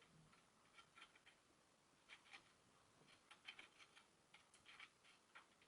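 Faint, irregular light clicks and ticks of small metal headset parts being handled and threaded onto a bicycle steerer.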